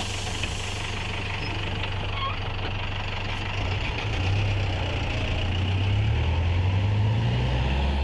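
Bus engine idling, then pulling away about halfway through, its note rising in steps as it accelerates.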